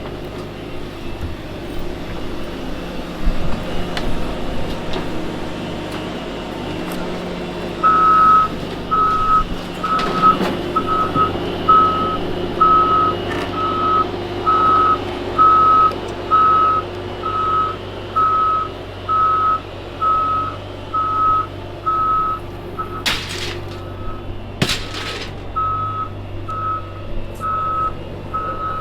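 A vehicle's back-up alarm beeping steadily, about once a second, over its engine running, with the beeping starting about eight seconds in. Two sharp clanks sound near the end.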